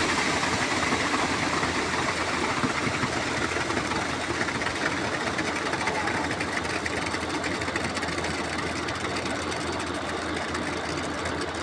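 Heavy engine of road-construction machinery running steadily, with a constant low hum under a dense mechanical rattle.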